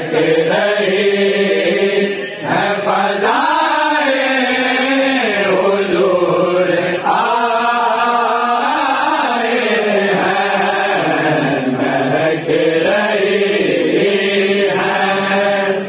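A group of men singing a naat, an Urdu devotional poem in praise of the Prophet, together into a microphone without instruments, in long held, chant-like lines.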